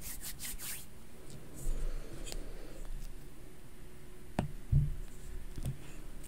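A stylus tip tapping a tablet's glass screen, with light rustles of handling in the first second and a few sharp taps later on. A dull knock just after the sharpest tap, about four and a half seconds in, is the loudest sound.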